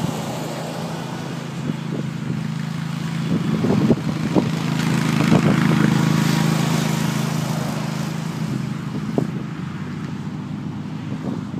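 2011 Hustler Super Z zero-turn mower's engine running at speed as the mower drives past, growing louder to a peak about halfway through and then fading as it moves away.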